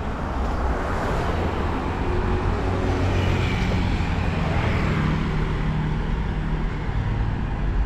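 A motor vehicle passing on the road: tyre and engine noise that swells through the middle, with a low engine hum in the second half.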